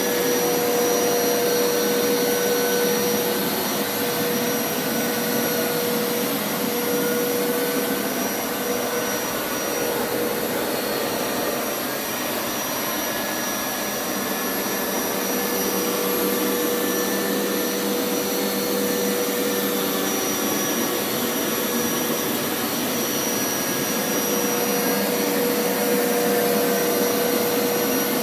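Hoover Power Scrub Elite carpet washer running steadily over carpet: a loud motor drone with a steady whine, easing off slightly for a few seconds midway.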